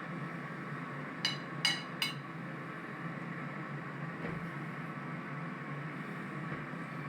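Three quick light clinks of a kitchen utensil against a dish about a second in, over a steady electrical hum.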